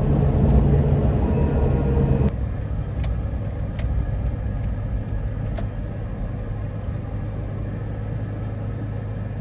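Road and engine noise of a 1995 Mitsubishi Pajero Mini kei car at highway speed, heard from inside the cabin. It is a steady low drone that drops suddenly to a quieter level about two seconds in, with a few light clicks after.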